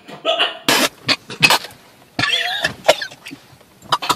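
A man coughing hard in a series of loud, ragged bursts, a reaction to drinking a foul-tasting smoothie.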